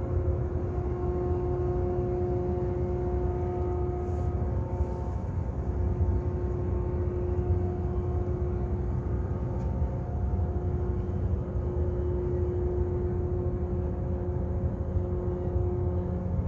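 Steady low rumble of the container ship's engines as it passes close by, with a humming tone that drops out and comes back at a slightly different pitch every few seconds.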